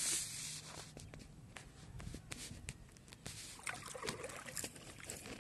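A splash as a hooked catfish is pulled up out of the river on a fishing line, followed by trickling and small sloshing of water with scattered clicks.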